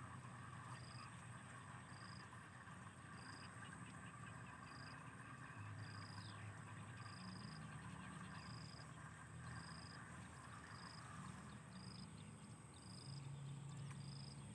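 Faint insect chorus: a steady high-pitched buzz, a short high chirp repeating about every three-quarters of a second, and a softer chirring underneath.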